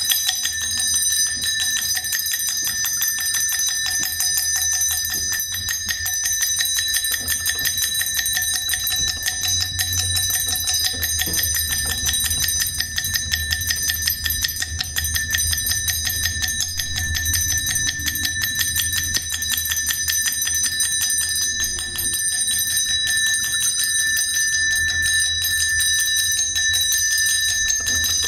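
A bell ringing without pause, struck very rapidly so that its several high ringing tones hold steady, over a low hum.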